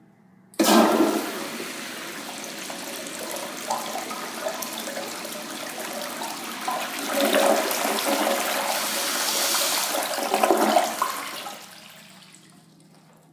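Universal Rundle Atlas toilet flushing on a flushometer valve. A loud rush of water starts suddenly about half a second in, runs for about eleven seconds, and dies away near the end.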